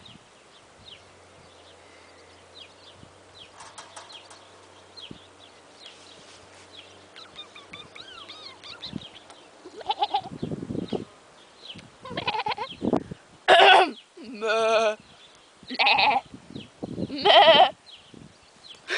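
Horned sheep bleating, about six loud 'baa' calls in the second half, one with a quavering wobble, after a quiet first half.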